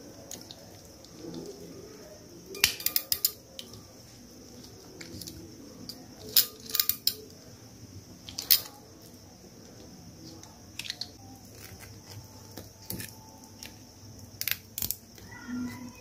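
Hand RJ45 crimping tool clicking as its handles are squeezed to crimp a modular plug onto a shielded Cat7 ethernet cable, in several short clusters of sharp metallic clicks.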